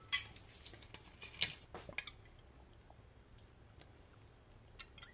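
Faint scattered clicks and light taps, a few in the first two seconds and a pair near the end, as a bottle of olive oil is handled and opened for pouring over the pasta.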